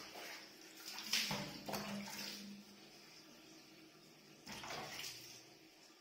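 Water poured from a bucket splashing over a pug puppy during its bath and onto the floor, in two spells: one about a second in, and a shorter one past the middle.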